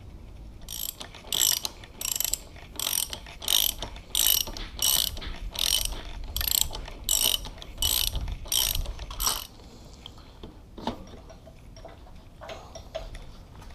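Socket ratchet clicking in repeated strokes, about one and a half a second, as it unscrews the front axle of a Suzuki DR650. The strokes stop about two-thirds of the way through, leaving a few quieter clicks.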